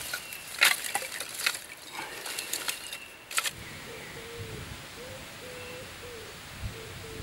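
Split firewood sticks clattering and knocking together as they are handled and stacked, in a run of sharp irregular clacks. About halfway through these stop and a low rumble of thunder takes over.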